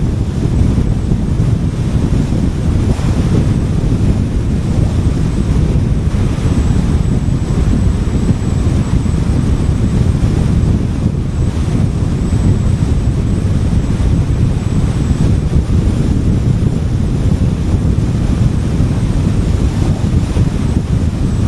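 Steady rumble of road and wind noise from a car driving along a highway at speed, heaviest in the low range and unchanging throughout.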